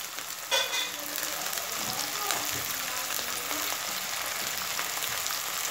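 Broccoli florets sizzling in hot oil with fried onions in a pan: a steady frying hiss, with a brief louder sound about half a second in.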